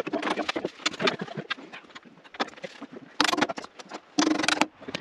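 Metal clinks and knocks of bolts and hand tools as the sawmill's extension is bolted together, with two short, harsher bursts of rattling about three and four seconds in.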